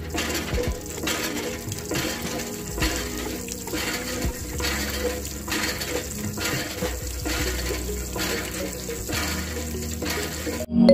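Water gushing and splashing from a miniature hand pump, pulsing in a steady rhythm of a little over one stroke a second.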